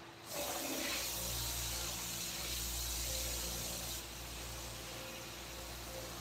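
A steady hiss with a low hum beneath it, starting about a third of a second in and dropping in level about four seconds in.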